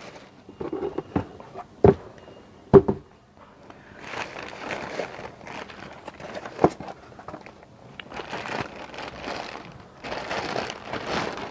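Packaging being handled while unpacking a ceiling fan: wrapping rustles and crinkles in three stretches, with a few sharp knocks and clicks of parts being set down, the loudest a little before three seconds in.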